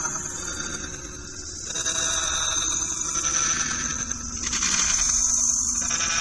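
Car audio system playing very loud through a DC Audio Level 5 M1 15-inch subwoofer in a ported box, hard enough to flex the car's roof. It comes across as a dense, harsh wash of sound rather than clear music, dipping briefly about a second in.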